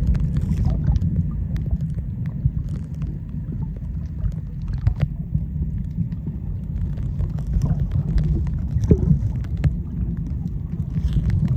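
Underwater sound picked up by a camera held in the sea: a steady low rumble of moving water with many small scattered clicks and crackles.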